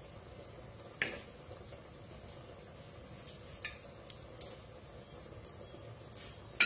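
Metal spoon stirring frog pieces in an earthenware clay pot as they dry out over the heat, clinking and scraping against the pot in a few irregular sharp clinks, the loudest near the end.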